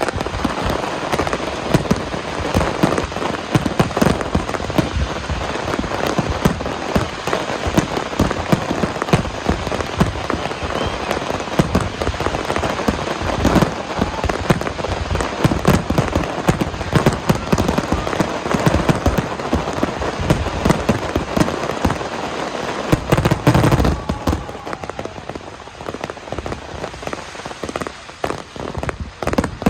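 Fireworks crackling densely: a rapid, unbroken run of many small pops that thins out over the last few seconds.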